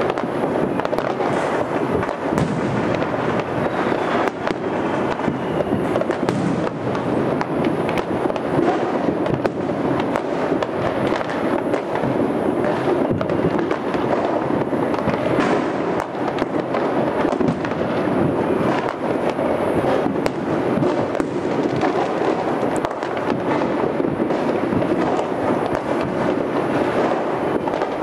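Many distant fireworks and firecrackers going off at once: a dense, steady wash of bangs and crackling, with frequent sharp pops.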